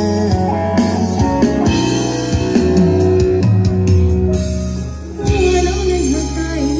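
A live band playing guitar-led pop-rock, with a singer's voice. The music dips briefly about five seconds in, then carries on.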